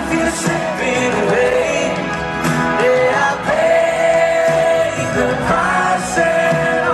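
Live pop ballad: a male vocalist singing over strummed acoustic guitar in a concert hall, holding one long note near the middle.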